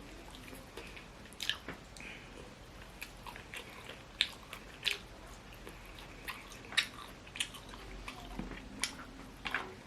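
A person chewing food close to the microphone: soft, scattered mouth clicks and smacks from eating, a piece of sweet cured pork (tocino) among the food.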